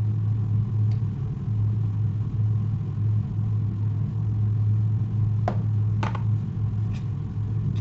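A steady low hum, with two sharp knocks a little over half a second apart about five and a half seconds in, and a fainter one after.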